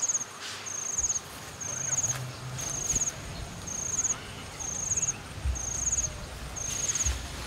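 An insect calling in a steady rhythm: short, high-pitched buzzy chirps, each made of rapid pulses, repeating about once a second. Faint rustles and a couple of soft low thumps come through under it near the end.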